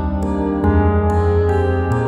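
Background music: plucked string notes with sharp attacks, over held low notes that change pitch every second or so.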